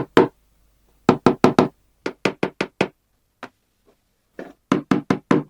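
Quick, sharp knocks or taps in runs of about five, three runs with a single knock between them, as if rapping on toy packaging before it is unboxed.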